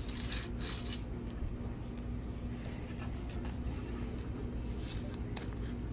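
Skilsaw 1616 chainsaw's new pull rope rubbing as it slides through the recoil starter housing and rewinds, a rasping sound that is loudest in the first second, over a steady low hum.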